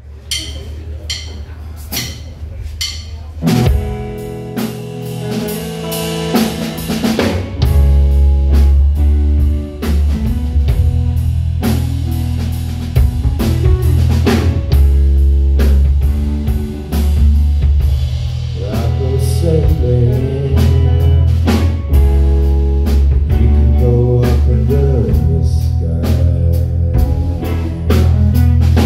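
Live rock trio playing: a Gretsch drum kit on its own at first, then electric bass and electric guitar come in about three and a half seconds in, and the full band plays loudly from about eight seconds in.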